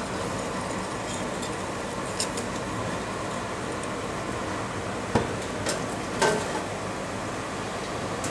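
Steady rushing of a coal forge fire under its air blast, with a few sharp metal clinks from the tongs and hot blade as it is lifted from the fire and carried to the oil quench pot.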